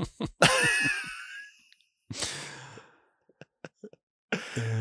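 A person's breathy, laughing sigh, then a second, softer exhale about two seconds in.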